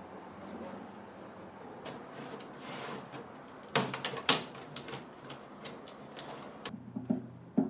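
Scraping and rubbing during hands-on work, then a quick irregular run of sharp clicks and taps lasting about three seconds. Near the end, music with a percussive wood-block beat comes in.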